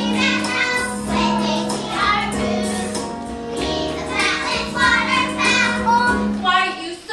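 Children's voices singing a show tune together over a musical accompaniment.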